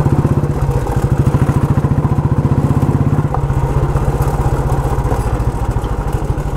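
Motorcycle engine running steadily while riding, heard close up from the bike as an even, rapid pulsing; the note shifts slightly about three seconds in.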